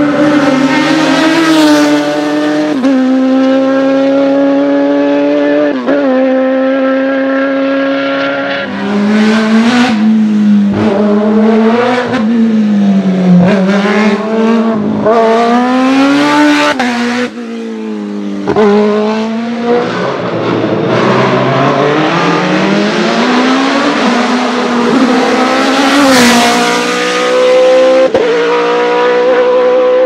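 Race car engines at full throttle on a hillclimb course. The pitch climbs and drops sharply again and again as the cars shift quickly through the gears, with a busy stretch of rapid revving in the middle. A car passes close near the end, and another engine rises steadily after it.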